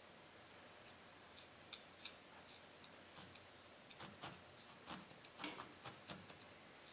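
Single felting needle stabbing repeatedly into wool on a burlap-covered felting pad: faint, irregular ticks that come more often in the second half.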